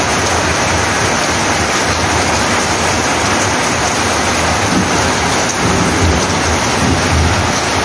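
Very heavy rain pouring down, a loud, steady hiss.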